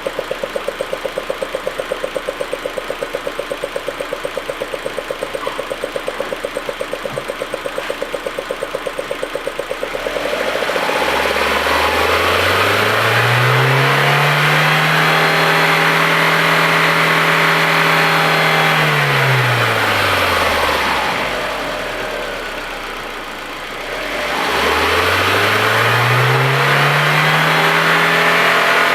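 Audi A4 1.8T four-cylinder turbo engine idling with a regular pulsing stumble, the rough idle and misfire that the owner is chasing. It is then revved up and held at high revs for several seconds, dropped back to idle, and revved and held again near the end.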